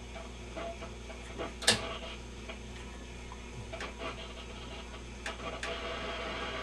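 Scattered clicks and knocks as the controls of an Admiral 16R11 tube television are worked by hand, over a steady low hum. The sharpest click comes about a second and a half in.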